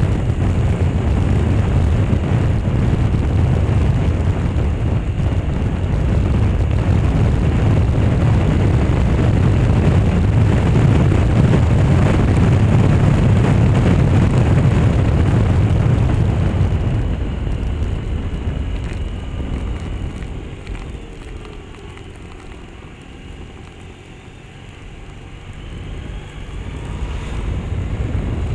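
Wind buffeting the handlebar-mounted camera's microphone, mixed with engine and road noise from a Suzuki Burgman scooter on the move. The rumble dies away about two-thirds through as the scooter slows, then builds again near the end as it picks up speed.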